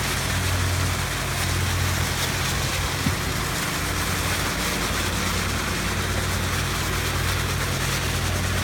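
Steady low motor hum with a constant hiss over it, and one brief knock about three seconds in.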